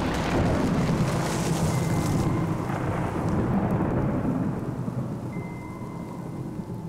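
Thunder: the long rumble after a thunderclap, fading over about five seconds, with rain.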